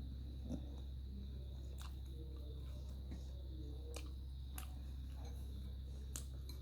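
Close-miked eating of chicken phaley: quiet chewing with a few sharp crunches or mouth clicks, over a steady low hum and a faint high whine.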